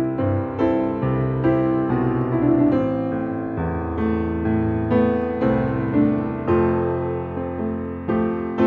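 Background piano music: a melody of struck notes over held low notes.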